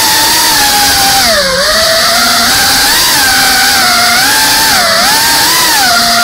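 GEPRC CineLog35 cinewhoop FPV quadcopter's brushless motors and propellers whining. The pitch dips and rises with the throttle, dropping deeply about a second and a half in and again near five seconds.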